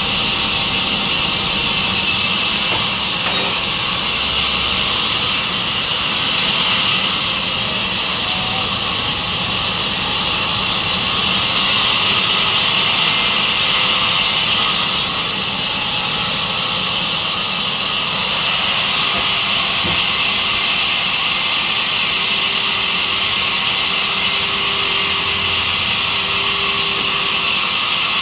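Sawmill saw machine running steadily, with a loud, even hiss over a low hum.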